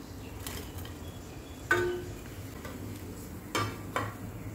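A steel slotted spoon clinks against a steel kadhai four times while bread rolls are lifted out of hot oil. The loudest clink, about halfway through, rings briefly like struck metal. A faint steady sizzle of oil runs underneath.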